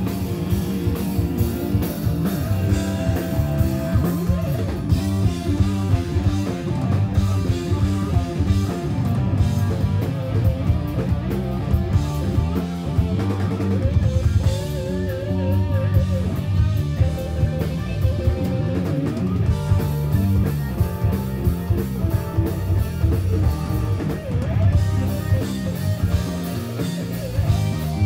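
Live rock band playing: electric guitar lead over bass guitar, drum kit and keyboards. The guitar plays runs of quick notes, with wavering vibrato notes about halfway through.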